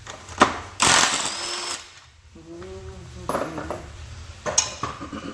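A power tool runs in a loud burst of about a second, followed by shorter bursts and clanks of tools on metal, while the fasteners of a transmission case are being removed.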